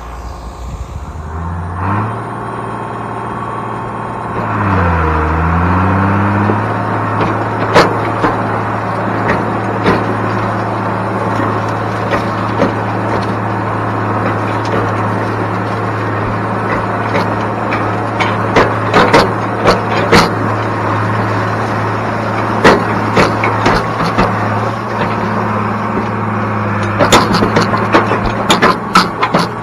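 International Harvester 856 tractor's engine revving up and running hard under load, pulling a wagon out of mud. The revs dip and recover about five seconds in, then hold steady. Sharp knocks and clanks come throughout, most about 18 to 20 seconds in and near the end.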